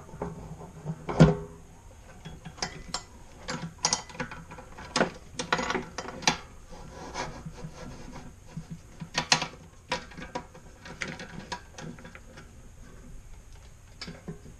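Irregular metallic clicks, knocks and rattles as the belt guard, pulleys and motor mount of a ZJ4110 bench drill press are handled and adjusted with hand tools. The loudest knock comes about a second in.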